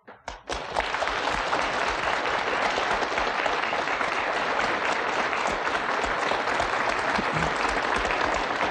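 Studio audience applauding: many hands clapping in a steady, dense patter that starts about half a second in.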